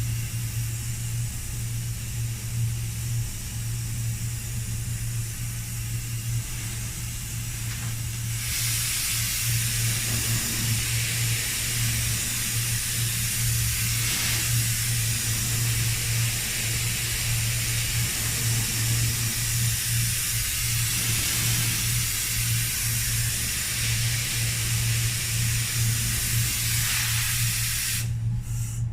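Compressed air hissing steadily from a paint spray gun, growing stronger about eight seconds in and cutting off suddenly near the end, over a steady low hum.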